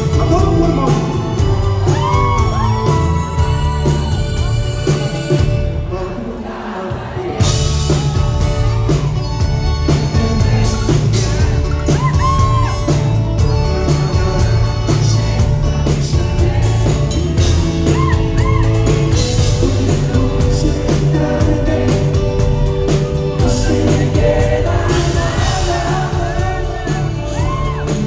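Live Mexican grupera band playing: electric bass and drums under a lead singer, with whoops from the crowd. The bass and drums drop out for about a second and a half a quarter of the way in, then the full band comes back in.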